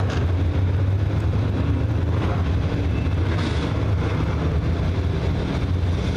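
A pack of dirt late model race cars racing on a clay oval, their crate V8 engines giving a loud, steady drone.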